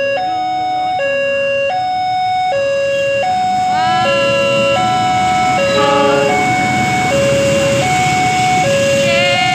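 Railway level-crossing warning alarm sounding an electronic two-tone signal, a lower and a higher tone swapping about every three-quarters of a second. From about four seconds in, the rumble of a passing diesel-hauled KAI train, led by a CC206 locomotive, builds up beneath it.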